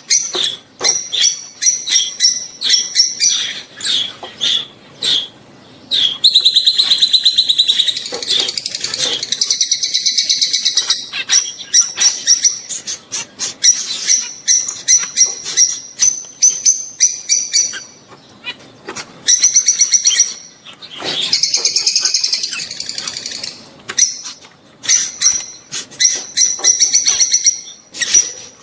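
Lovebirds chattering in their mating calls: rapid high-pitched chirps in quick bursts, broken by several longer runs of fast trilling, the longest about five seconds.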